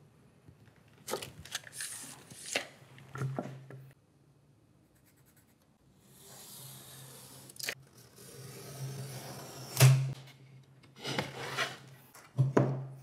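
Hand-tool work on plasterboard: a tape measure and pencil scraping and rubbing on the board, with scattered light knocks and a short gap partway, then a sharp knock about ten seconds in, the loudest sound.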